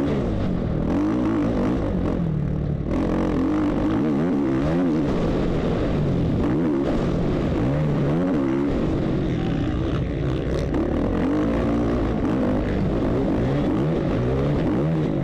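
A 450cc four-stroke motocross bike's engine, heard close from a camera mounted on the bike, revving up and down again and again as the throttle is opened and shut around the track.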